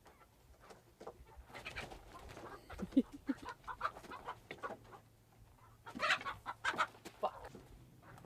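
Chicken squawking and clucking in alarm, in two loud flurries, as someone tries to grab it.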